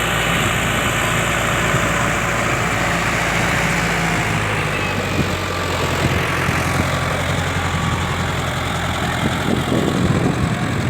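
Indo Farm 3055DI 4x4 tractor's diesel engine running steadily, its note shifting lower and heavier about halfway through.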